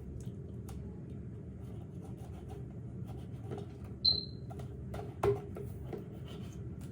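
Quiet handling sounds from unpacking a new pressure cooker: small clicks and rustles, a brief high ring about four seconds in and a knock about a second later, over a steady low hum.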